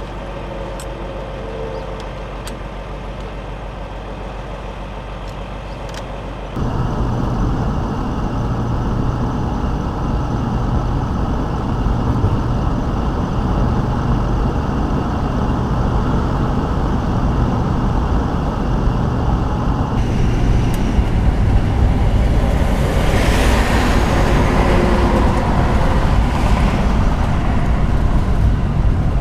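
Ford Class C motorhome on the move, heard from inside: a steady, quieter engine hum, then from about six and a half seconds in the much louder engine and road noise of driving.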